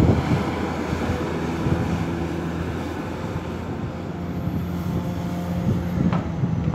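Diesel engine of a Komatsu long-reach excavator running steadily as the boom lifts and swings, a low even drone, with a sharp knock right at the start.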